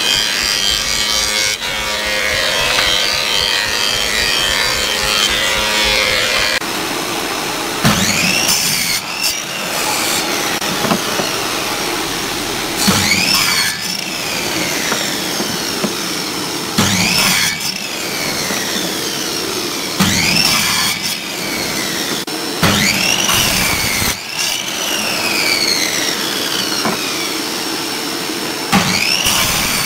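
A thickness planer runs steadily with a board feeding through it for the first six seconds or so. Then a sliding miter saw makes about six short crosscuts through wood strips. Each cut has the motor whining up, the blade biting and the motor winding down.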